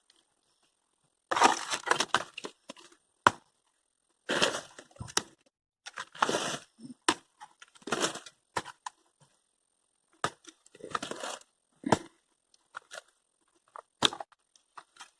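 Thin dry sticks being snapped and pulled out of a dried-mud structure: irregular bursts of cracking and crumbling, with single sharp snaps between them.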